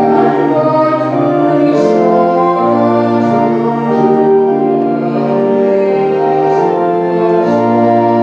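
Church organ playing a hymn tune in slow, sustained chords that change about once a second.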